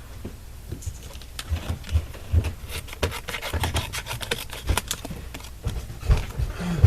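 Scissors snipping through paper in short, irregular cuts, with paper rustling and a few soft knocks of handling on the work surface.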